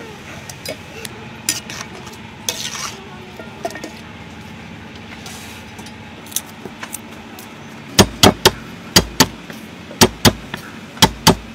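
A metal spatula clinking lightly against a wok and bowl over a steady low sizzle. From about eight seconds in, a knife chops garlic on a wooden chopping board in about nine loud, sharp strokes, mostly in quick pairs.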